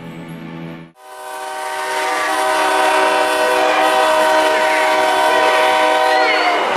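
A loud, sustained horn-like chord of several steady tones. It swells in about a second in, right after the music cuts out, holds level for several seconds, and breaks off just before the end.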